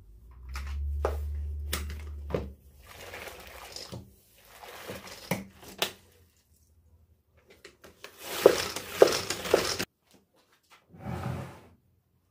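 Household handling sounds: scattered clicks and knocks, stretches of rustling, and a louder burst of rustling with knocks that cuts off suddenly near the end.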